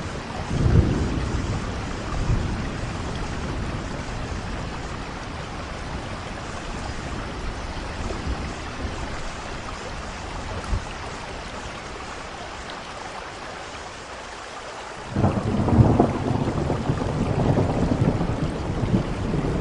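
Steady heavy rain with thunder. A rumble rolls in about half a second in, and a louder roll of thunder begins suddenly about three-quarters of the way through and keeps building.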